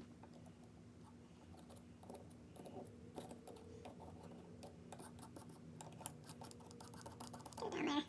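Faint scattered clicks and light scraping from small-parts handling: a knife tip dabbing grease into a ratchet head around the pawl, over a low steady hum. A brief louder falling sound comes near the end.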